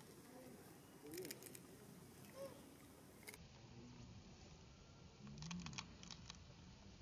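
Near silence, with faint clicking in two short clusters, about a second in and again after five seconds.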